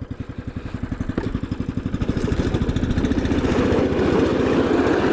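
Small gasoline engine running, its firing beat quickening as it speeds up and comes under load, with a rising rush of noise from about halfway through.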